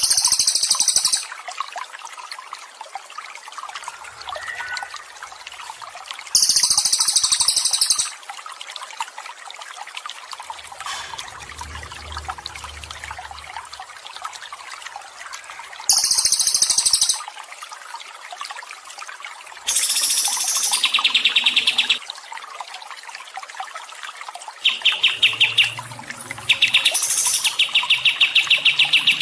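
Songbird recordings over steadily trickling water: short, very high-pitched bursts of song three times, then fast, rapidly repeated trills that run on almost without a break near the end.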